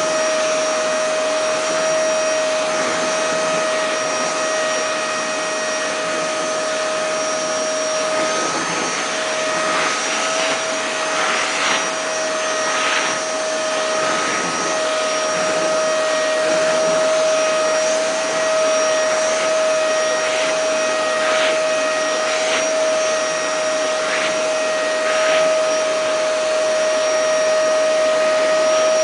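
Vacuum cleaner running steadily with a constant whine, with brief short rushes of hissing sound now and then as its suction changes.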